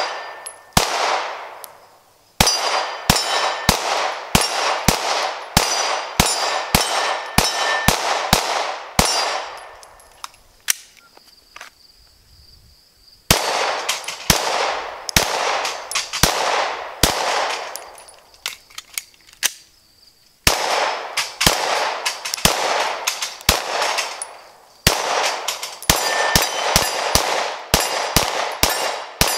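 Glock 19 9 mm pistol firing strings of rapid shots, about two to three a second, each trailing off in echo. The firing stops twice, for about three seconds each time, near the middle.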